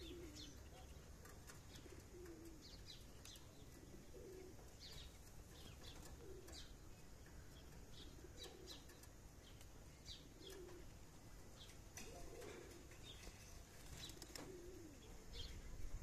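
Faint birdsong at dawn: a pigeon-family bird cooing over and over, a short low call every second or two, with small birds chirping high above it.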